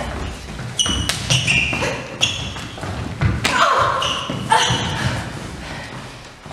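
Footfalls thudding and shoes squeaking sharply, about five times, on a wooden hall floor during a fast choreographed fight, with grunts and breaths of effort.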